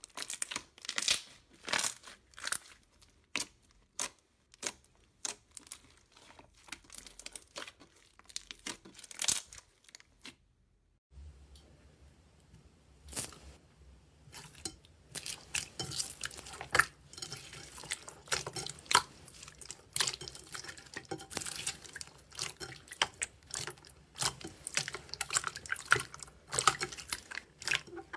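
Slime being squeezed, poked and stretched by hand, making quick irregular bursts of sticky crackling and popping. The sound stops for a moment about ten seconds in, then starts again over a faint low hum.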